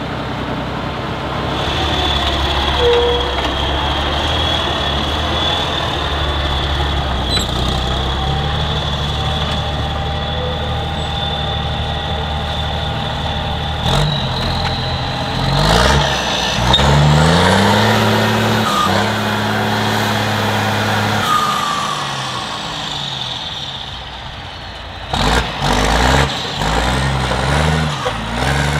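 Off-road trial truck's diesel engine working, steady at first, then revving up and down over and over. A high whistle climbs with the revs and slowly fades. A few sharp, loud noises come near the end.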